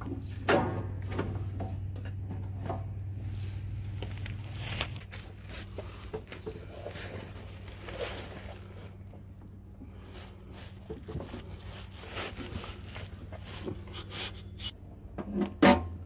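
Scattered clicks, knocks and scrapes from hands working the deck drive belt and tensioner arm under a Cub Cadet zero-turn mower. A louder knock comes about half a second in and another near the end. A steady low hum runs underneath until about five seconds in.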